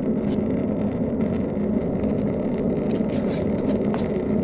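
Steady roar of a camping stove burner under a cooking pot, with a metal spoon scraping and clicking against the metal pot several times as rice is stirred.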